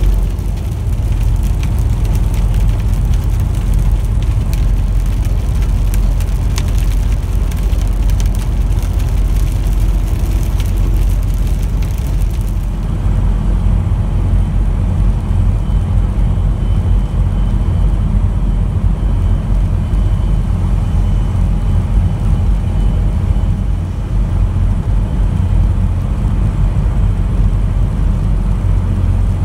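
Steady low drone of a truck's engine and tyres heard from inside the cab while cruising on a wet highway. For about the first twelve seconds a crackly wet hiss rides on top, then drops away, leaving only the low drone.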